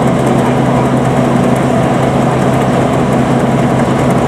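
Small rice combine harvester running steadily while harvesting, its engine and threshing drum giving an even hum with a low steady tone.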